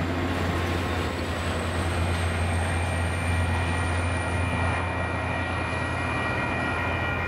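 MBTA GP40-MC diesel locomotive, a turbocharged EMD 16-cylinder engine, going past at the rear of a commuter train, pushing it. The engine runs with a deep steady drone under several high steady tones and a faint high whine that slowly rises in pitch.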